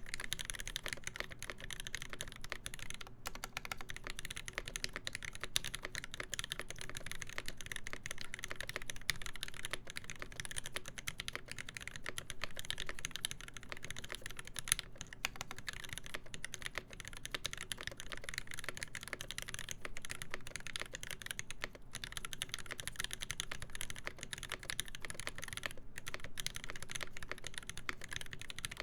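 Continuous fast typing on a KBD8X MKII mechanical keyboard with a full brass plate, lubed Alpaca linear switches and GMK keycaps: a dense, even stream of keystrokes with only a few brief pauses.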